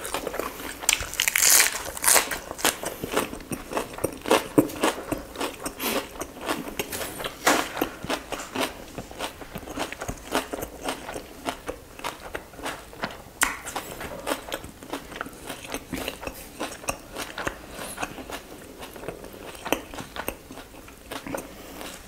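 Close-miked eating: wet chewing and biting of roast chicken and lettuce wraps, with many irregular crisp clicks and crunches.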